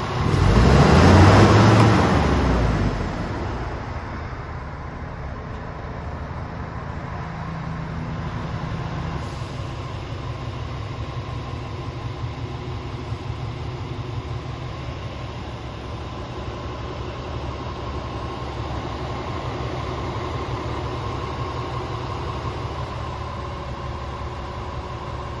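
Scania R450's 13-litre straight-six diesel, heard from inside the cab: a brief rev that rises and falls back within the first few seconds, then a steady idle.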